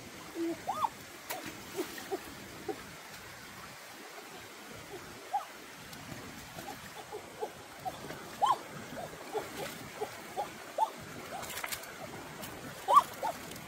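Shallow stream running over rocks, trickling and gurgling, with many short irregular bubbly plinks and a few faint splashes.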